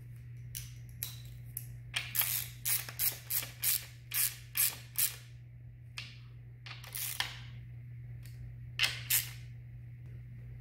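Hand ratchet clicking in short bursts as valve cover bolts are run down on a Honda K20 engine, over a steady low hum.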